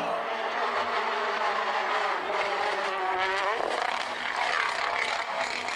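Rally car engine running hard at high revs, its pitch jumping sharply upward about three and a half seconds in, followed by a rougher, noisier stretch.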